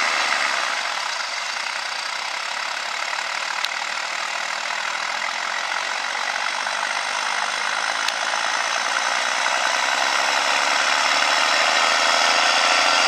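Farm stock tractor's diesel engine running hard under load as it pulls a weight-transfer sled, growing gradually louder toward the end.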